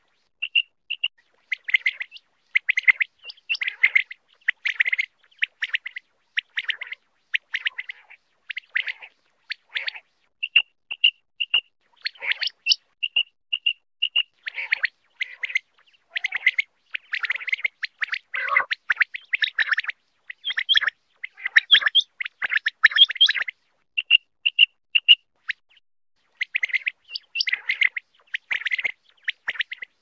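Quail calling over and over: short, high, clipped notes in clusters, some in quick runs of three to five notes, with brief pauses between bouts.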